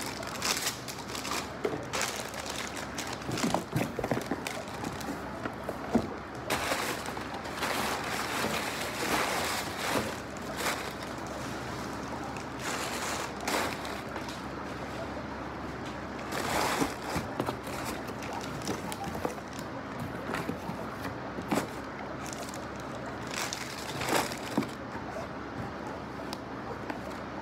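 Cardboard boxes and packaging being handled while unpacking: irregular rustling, scraping and crinkling, with scattered sharp taps and knocks.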